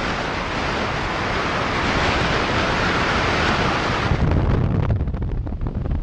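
Wind rushing over the camera's microphone on a moving motorcycle at highway speed, with the low rumble of the motorcycle underneath. About four seconds in, the hiss drops away and uneven low buffeting takes over.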